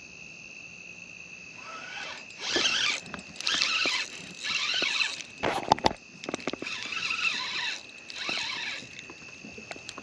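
Crickets chirping steadily at night, overlaid by about five loud scraping, zipper-like bursts of about a second each, with a quick cluster of sharp clicks a little past the middle.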